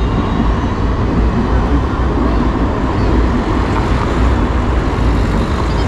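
Steady city street traffic noise: road vehicles such as a bus running past in an even, low rumble.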